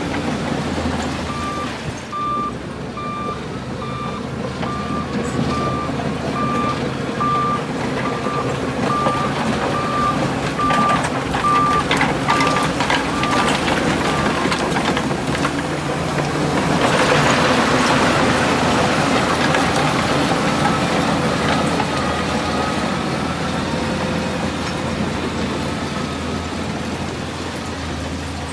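Heavy diesel earthmoving machinery running, with a reversing alarm beeping about once a second that stops about halfway through. A louder rushing noise swells briefly a little past the middle.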